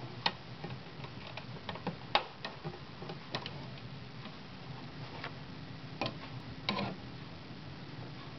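Glass front door of a reptile terrarium being opened by hand: scattered sharp clicks and taps from its frame and latch, the loudest about two seconds in and near seven seconds, over a steady low hum.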